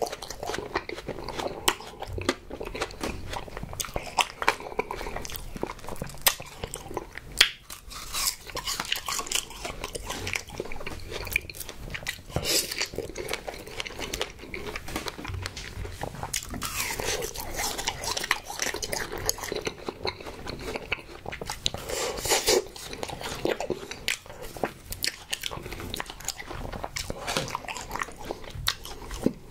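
Close-miked eating of strawberry desserts such as an ice-cream bar and fresh strawberries: biting and chewing, with many sharp clicks and wet mouth sounds that come thicker in a few stretches.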